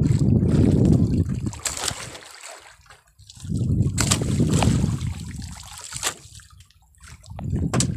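Water sloshing and splashing against the side of a small boat, coming in three surges a few seconds apart, with a few sharp knocks.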